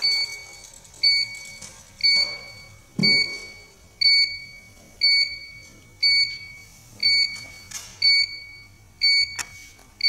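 CFM-Lite crimp force monitor sounding its defect alarm: a short, high electronic beep repeating about once a second. It signals a rejected crimp, here one wire core strand sticking out of the terminal, and the press is interlocked until the alarm is reset.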